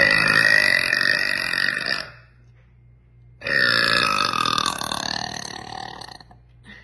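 A girl belching twice: two long, loud burps about a second and a half apart, the second one drawn out and trailing off.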